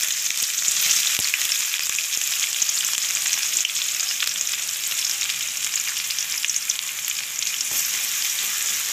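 Sliced onions sizzling in hot oil with mustard and fenugreek seeds in a kadai: a steady frying hiss with a few faint clicks.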